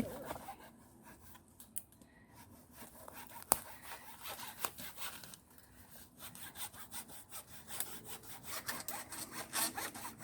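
An old hand saw cutting through a dry dead branch in quick back-and-forth strokes, a saw that is not cutting well. The strokes pause briefly in the middle, where there is one sharp knock, then pick up again and grow louder near the end.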